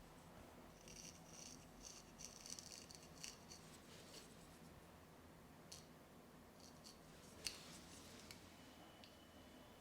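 Faint snipping of a barber's scissors cutting hair: quick runs of snips for about three seconds, then a few scattered single snips, the sharpest one near the end.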